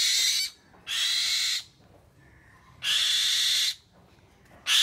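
Young hand-raised kite (diều trắng) giving a series of harsh, hissing screeches, each under a second long and about one to two seconds apart.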